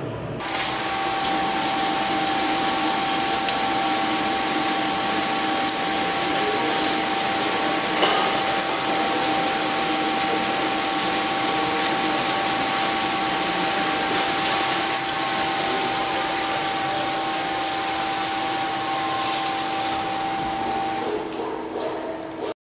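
Knuth StarChip 450 CNC lathe turning a metal workpiece under high-pressure coolant: a steady hiss of coolant spray with a steady whine from the machine over it. It starts abruptly about half a second in and cuts off suddenly just before the end.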